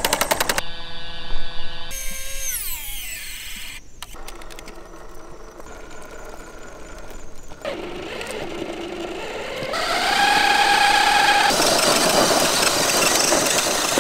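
Electric motor and gearbox whine of scale RC crawler trucks driving, changing abruptly across several cut-together shots. The pitch falls about two to four seconds in, then rises again near ten seconds into a louder, grittier stretch as the trucks pull over dirt and gravel.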